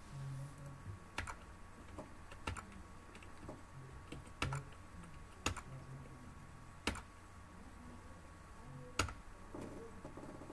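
Scattered sharp clicks of a computer mouse, about six over ten seconds, several in quick pairs like double-clicks. They sit over a faint steady hum.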